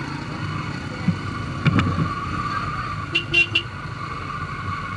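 Yamaha YBR-G 125 cc single-cylinder motorcycle engine running at low speed, with two or three short horn beeps about three seconds in.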